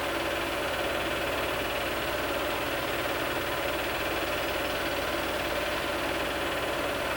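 Film projector running: a steady mechanical whir and hum with hiss, unchanging throughout.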